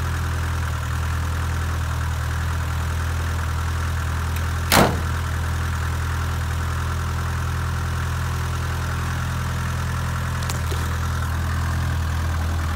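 1962 Land Rover Series 2A's 2.25-litre four-cylinder diesel engine idling steadily just after a cold start. A single sharp bang about five seconds in, from the driver's door being shut.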